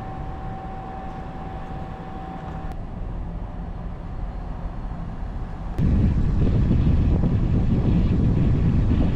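A diesel air heater running on high, a steady low running noise with a thin steady whine that stops a few seconds in. About six seconds in it cuts abruptly to a louder, deeper rumble.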